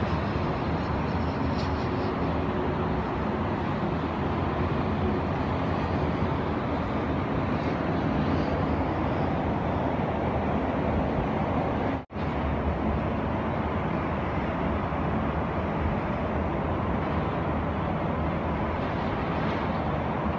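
Steady hum of road traffic on a multi-lane highway below, with passing cars and trucks blended into one continuous noise. The sound cuts out for an instant about twelve seconds in.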